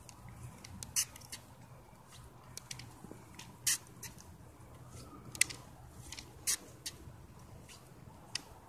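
Slow walking on forearm crutches over a hard tennis-court surface: irregular short squeaks and taps from the rubber crutch tips and sneakers, about one every second or so, over a faint steady outdoor background.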